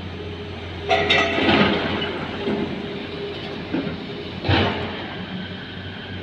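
Heavy diesel excavator engine running steadily, with loud metallic clanking and screeching about a second in and again around four and a half seconds in.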